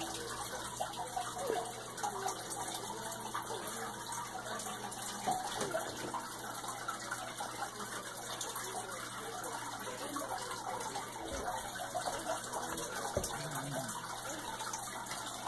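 Steady running, trickling water, as from the aquarium's filter.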